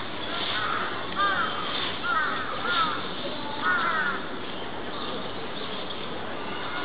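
Birds calling: short calls that rise and fall in pitch, repeated in twos and threes through the first four seconds or so, over a steady background hiss.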